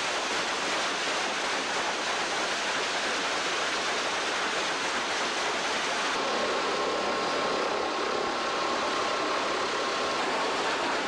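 Sawmill log-handling machinery running, with a loud, steady hissing wash of noise as logs ride a chain conveyor. From about halfway through, a faint high squeal of two steady tones sits over it for a few seconds.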